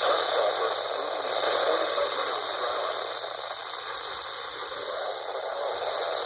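Radio receiver static: an even hiss with a steady low hum and faint, slowly wavering tones under the noise.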